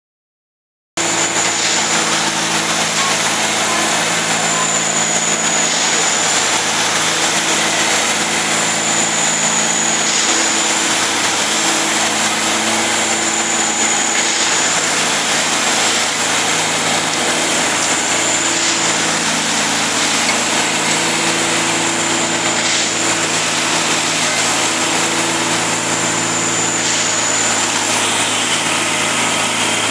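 Plasser 09-32 CSM track tamping machine running: a steady diesel engine drone with a high whine that dips and recovers about every four seconds.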